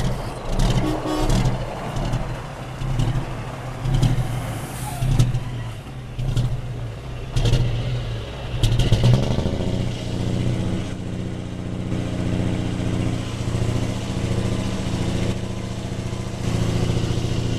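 Heavy truck engine running, uneven with several sharp knocks over the first half, then settling into a steady tone about halfway through.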